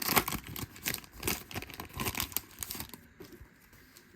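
Crinkling and tearing of a baseball card pack's wrapper as it is opened and handled, dying down about three seconds in.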